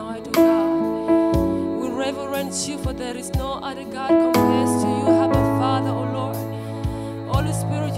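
Keyboard playing slow gospel worship music in long held chords, with deep low notes about once a second. A woman's voice sings softly over it at times.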